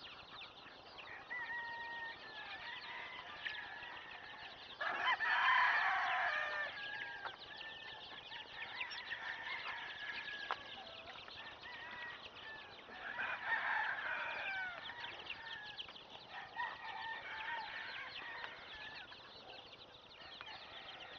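Gamecocks crowing around a yard of roundhead gamefowl, loudest about five seconds in and again around thirteen seconds, over a constant high chirping and clucking of many birds.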